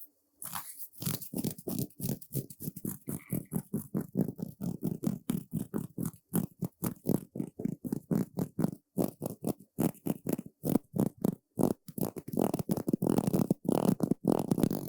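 Brush strokes in quick succession, several a second, each a short scratchy swish. They start about a second in and grow louder near the end.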